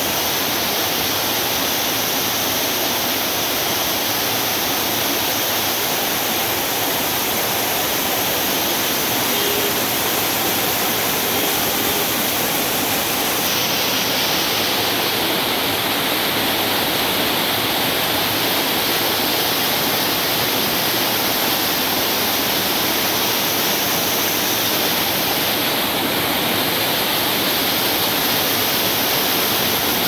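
Small mountain waterfall cascading over boulders into a rocky pool: a steady, loud rush and splash of falling water.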